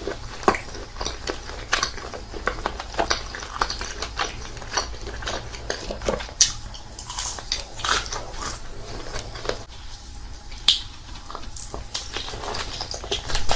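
Close-miked eating sounds: repeated biting and chewing, with many irregular small clicks and crackles from the mouth and food, one sharper snap about three-quarters of the way in.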